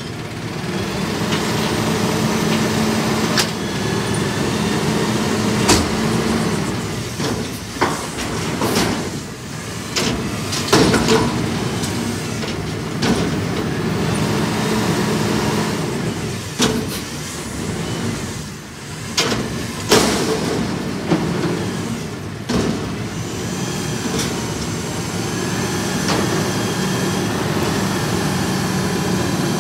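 Autocar ACX garbage truck's natural-gas engine running up to drive the Heil front loader's hydraulics, with a steady drone that comes and goes as the arms work. A dumpster held over the hopper is being emptied, and the steel container and arms make repeated loud clanks and bangs. Near the end the container is lowered.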